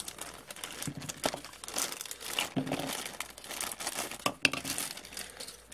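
Clear plastic figure packaging being handled: irregular crinkling and crackling of thin plastic, with sharp clicks now and then.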